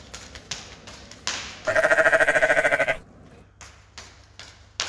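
A sheep bleats once, a single wavering bleat lasting just over a second, near the middle. A few light taps and clicks are heard before and after it.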